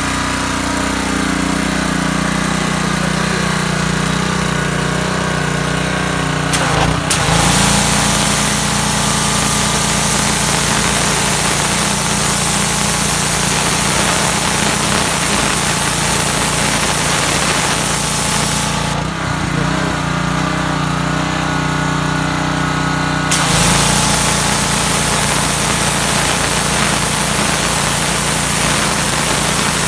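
Troy-Bilt 3100 psi gas pressure washer running, its engine pulling down under load each time the trigger opens and the high-pressure water jet hisses on to strip paint. The spray runs for about twelve seconds, stops for about four, and comes on again near the end.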